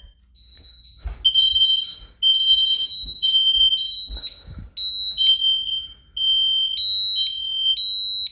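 Smoke alarm going off during a test of a Honeywell home alarm system. Loud, high-pitched beeps at two slightly different pitches repeat and overlap out of step, as from two sounders at once.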